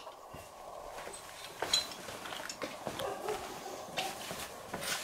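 Footsteps in sandals on a hard floor with faint handling noise and a few light clicks.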